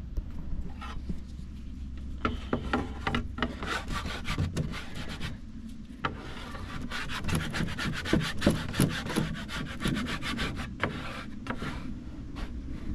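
Steel wool scrubbing a stripper-coated wooden dresser surface in rapid back-and-forth strokes, working off the old stain. The scrubbing picks up about two seconds in and breaks off briefly near the middle.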